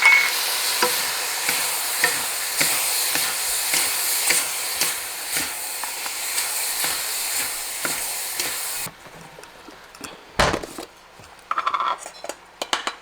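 Thin-sliced beef and onion sizzling in a hot pan as they are stir-fried, the spatula scraping and tapping against the pan. The sizzle cuts off suddenly about nine seconds in, leaving a few clinks and a dull knock.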